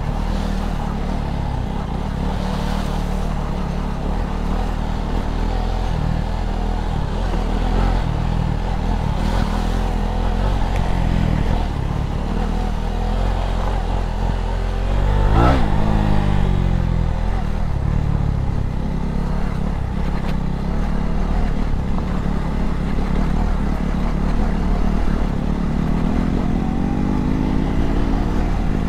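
Motorcycle engine running while riding, its pitch shifting with the throttle. About halfway through there is a brief louder moment with a quick swing in pitch, and near the end the pitch rises as it speeds up.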